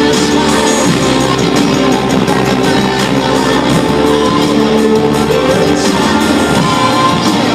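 Loud music playing steadily, with long held notes and no breaks.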